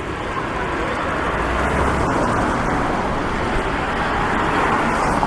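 City road traffic: cars going by on a busy street, the noise swelling about a second in and staying up.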